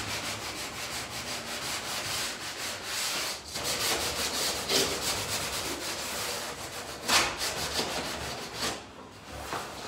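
Hand sanding on a closet door frame: quick back-and-forth strokes of sandpaper rubbing on the trim, easing off near the end.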